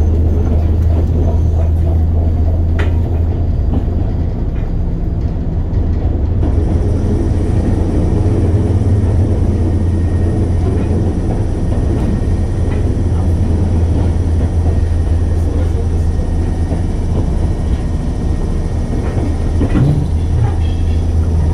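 Running sound inside a JR West 103 series electric train, heard from within its motor car MoHa 102: a steady low rumble and hum of the train under way, with a few short clicks along the way.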